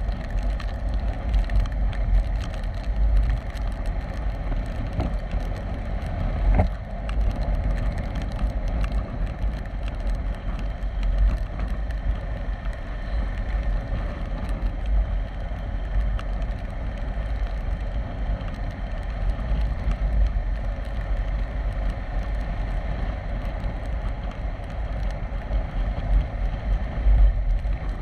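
KTM 390 Adventure's single-cylinder engine running at a steady cruise, under heavy wind rumble on the microphone, with one sharp click about six and a half seconds in.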